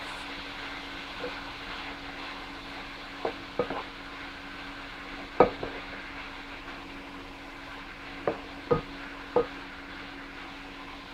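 Diced vegetables and imitation crab meat sizzling in a nonstick frying pan as a wooden spatula stirs them, knocking against the pan about eight times, the loudest about five seconds in. A steady low hum runs underneath.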